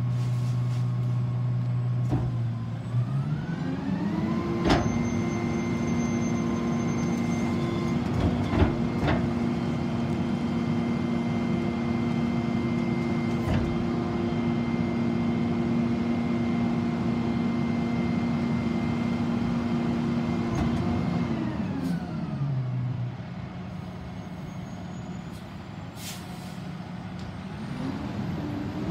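Rear-loading McNeilus garbage truck running its packer cycle. The diesel engine rises from idle to a raised, steady speed, with a few clanks as the hydraulic packer blade sweeps and compacts the load of yard waste. It then drops back to idle, and near the end the engine rises again as the truck pulls away.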